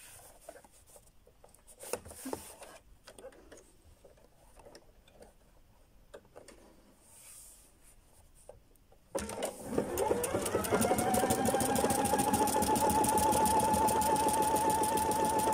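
Pfaff Performance Icon computerised sewing machine starting up about nine seconds in: its motor whine rises and then holds a steady pitch under a fast, even run of needle strokes as it sews. Before that there is only faint fabric handling and a few light clicks.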